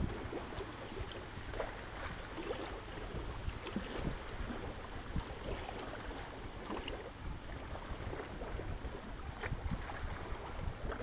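Waterfront ambience: wind on the microphone and small waves lapping, with many short splashes scattered over a steady low rumble.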